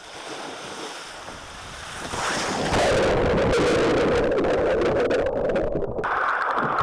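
Water rushing and splashing over a pool water slide and against the rider's wearable camera as they slide down. It swells to a loud, muffled rush about two seconds in.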